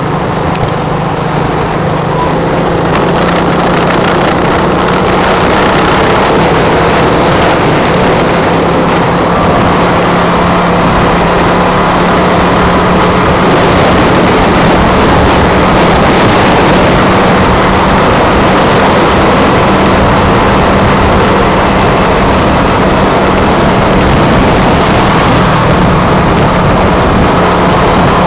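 Steady rush of wind and road noise from a moving vehicle in traffic, with an engine hum held at an even pitch throughout.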